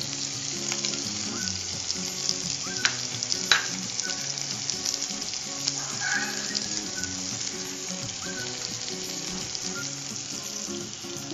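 Ghee and oil sizzling steadily in a frying pan with green chillies and whole spices as ginger-garlic paste and onion paste are tipped in and stirred with a wooden spatula. A couple of sharp clicks come about three seconds in.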